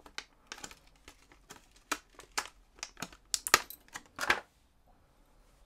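Plastic lure packaging crinkling and clicking as it is handled: a dozen or so irregular sharp ticks, with a longer rustle about four seconds in.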